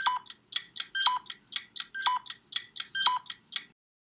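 Ticking countdown-timer sound effect: quick ticks about four a second, with a louder beep-like tick marking each second. It stops shortly before the end.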